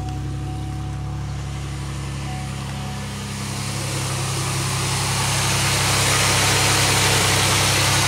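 2001 Pontiac Aztek's 3.4-litre V6 idling steadily just after start-up. About three seconds in, a hiss rises over it and stays as the loudest sound: steam and coolant venting at the open coolant bleed fitting.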